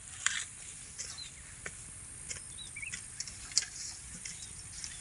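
Rural outdoor ambience: a steady high insect trill with a few short bird chirps, and scattered soft clicks or snaps, the sharpest just after the start and at about three and a half seconds.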